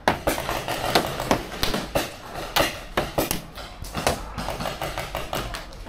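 Paintball markers firing: a rapid, irregular string of sharp pops, about three a second.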